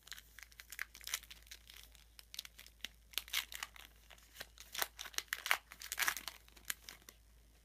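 Foil wrapper of a 2013 Topps Strata football card pack being torn open and peeled back by hand: a run of crinkling, tearing crackles that stops near the end.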